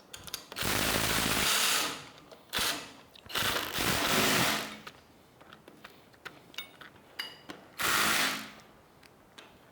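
A power tool running in four short bursts, the longest about a second, driving nuts onto the steering arm bolts. A few light metal clicks come between the last two bursts.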